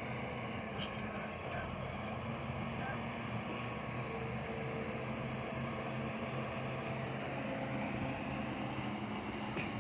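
Bulldozer's diesel engine running with a steady drone.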